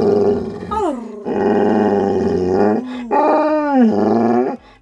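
A pet dog vocalizing while having its back scratched: three long, drawn-out grumbling calls, the first ending with a drop in pitch and the last swooping up and then down.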